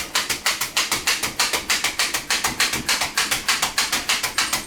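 A hand-held 48-blade meat tenderizer being plunged rapidly into a pork loin, giving an even run of sharp clicks, about five or six a second.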